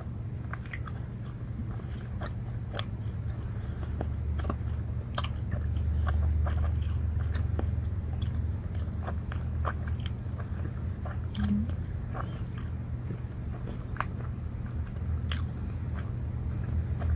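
Someone chewing and biting a crunchy snack close to the microphone: scattered irregular crunches and mouth clicks over a steady low hum.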